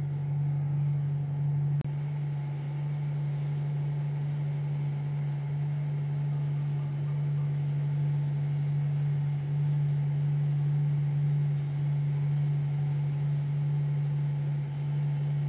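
Steady, unchanging low hum, with one faint click about two seconds in.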